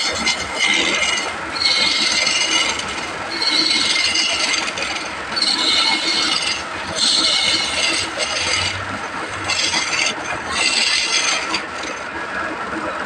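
Saw cutting through wood in repeated passes, a rasping hiss that rises and drops back about every two seconds.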